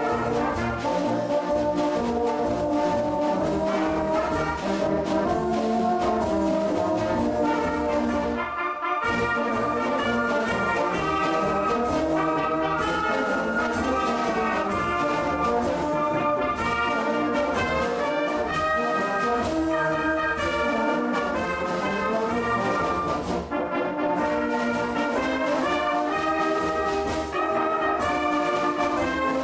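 A brass band with flutes playing: tubas, euphoniums, trumpets and flutes together in sustained chords, with brief breaks between phrases about nine and twenty-four seconds in.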